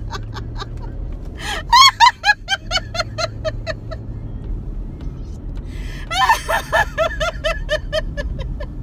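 A woman laughing out loud in two long runs of quick ha-ha pulses, starting about a second and a half in and again about six seconds in: deliberate laughter-yoga laughing, without a joke behind it. A car's low, steady hum runs underneath.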